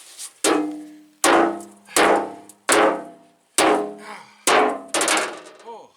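Sledgehammer blows on a steel truck fender to hammer out a dent: seven hard strikes about two-thirds of a second apart, each clang ringing on and fading before the next. Really hard on the ear.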